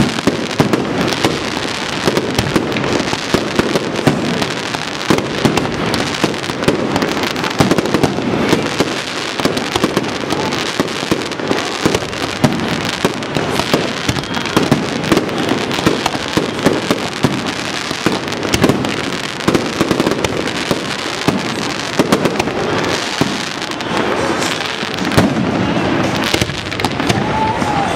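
Fireworks display: aerial shells bursting in a dense, continuous barrage of bangs and crackles with no let-up.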